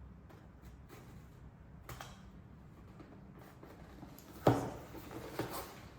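A cardboard package being handled and opened, with faint clicks and rustles. About two-thirds of the way through comes a sharp knock, followed by scraping and rustling of the packaging.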